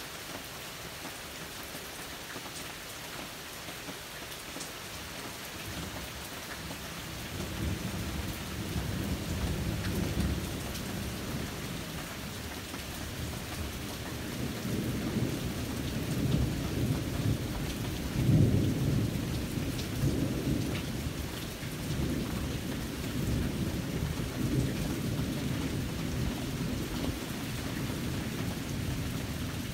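Steady rain falling, with long rolling thunder that swells in about a quarter of the way through, is loudest a little past halfway, and keeps rumbling after that.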